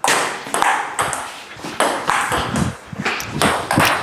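Table tennis rally: the ping-pong ball clicking off the paddles and bouncing on the table, about a dozen sharp hits in quick succession.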